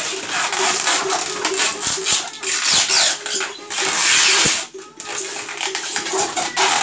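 Packing noise: plastic wrap and styrofoam boxes rustling, crinkling and rubbing as they are handled, with a few knocks. Voices chatter in the background.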